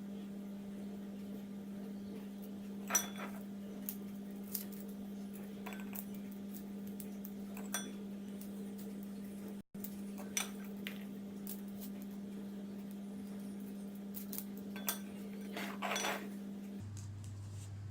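Scattered light clicks and clinks against a dish as garlic cloves are peeled, over a steady low hum.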